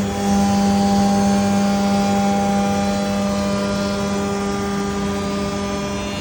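Biesse Rover K CNC router running while milling solid wood: a steady hum and whine of the machine under cut, with a faint hiss of cutting noise. It steps up in level right at the start, then eases off slowly.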